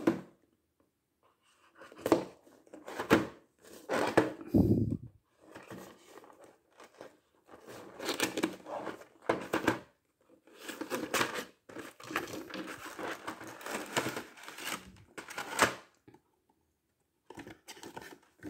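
Scissors cutting the tape seals of a cardboard toy box, with the paperboard rustling and tearing as it is handled, in short irregular bouts with pauses between. Near the end the box flap is pulled open.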